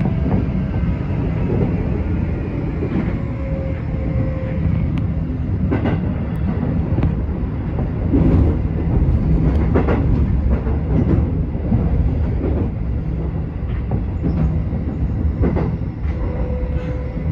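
Keikyu electric train running along the line: a steady rumble of wheels on rail, with irregular sharp clicks and clacks from rail joints and points, and a faint steady whine over it.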